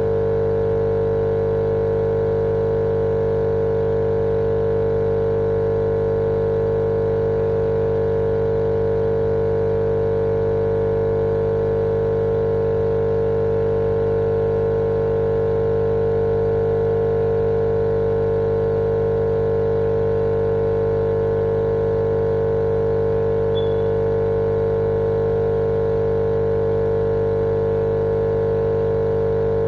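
Steady, unchanging machine-like hum with one strong mid-pitched tone over a low drone, played as a continuous white-noise track for lulling babies to sleep.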